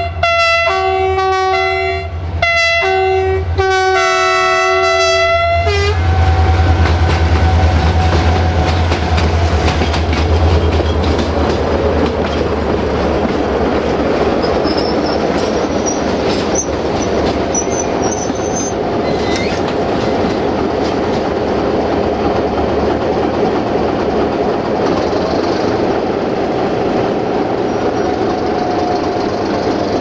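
Diesel locomotive horn sounding four blasts in a multi-tone chord, then the locomotive and its passenger coaches running past: a heavy engine drone and the clatter of wheels over rail joints. A brief high wheel squeal comes a little past the middle.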